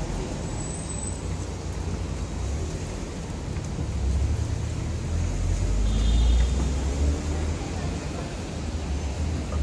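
City street traffic: cars driving past close by at the kerb, a steady low rumble that swells and eases.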